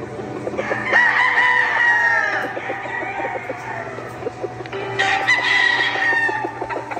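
Gamefowl roosters crowing: two long crows, one starting about a second in and trailing off downward, and another about five seconds in. Short clucks are heard between them.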